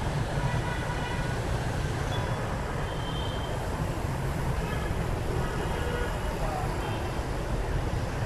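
Steady road traffic dominated by many motorbikes with some cars passing: a continuous mix of small engines and tyre noise, with faint short high tones now and then.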